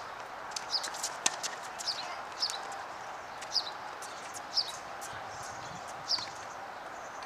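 A bird chirping over and over, a short high call falling in pitch about once a second, over steady background noise. A few faint sharp clicks come about a second in.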